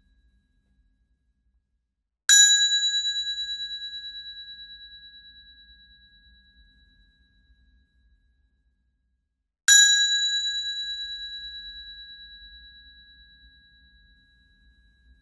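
A high-pitched bell struck twice, about seven seconds apart. Each ding rings out clearly with a slight pulsing waver and fades away slowly over several seconds.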